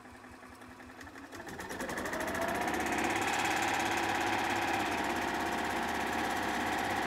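The Kawasaki FE290 single-cylinder engine of a 2005 Club Car DS gas golf cart is started in maintenance mode, just after an oil change with fresh oil. It comes up to speed over the first couple of seconds, runs steadily, and cuts off suddenly at the end.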